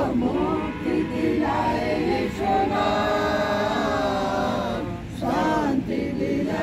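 A small mixed group of men and women singing a hymn together, unaccompanied, in long held notes, with a short breath between phrases about five seconds in.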